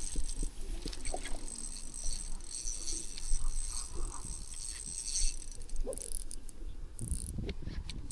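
Spinning reel being cranked to retrieve line, its mechanism giving a light continuous rattle with small clicks.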